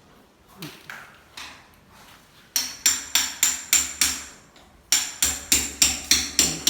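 Hammer blows ringing on metal, as on a chisel, in quick runs of about three to four strikes a second with a short pause in between. They are breaking out a cracked section of the work so it can be replaced.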